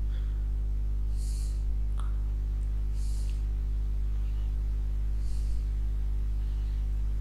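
Steady electrical hum, a low mains buzz with evenly spaced overtones, picked up on the microphone, with faint soft hisses about every two seconds.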